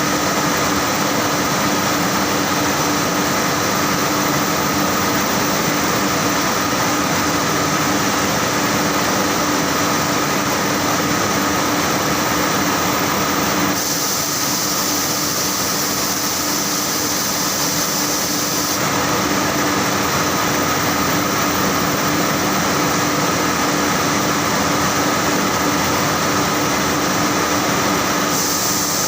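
Saurer JSC 330 textile carding machine running steadily: a dense mechanical rush with a low hum and a held mid tone. About halfway through, the sound turns brighter and hissier for several seconds, then settles back.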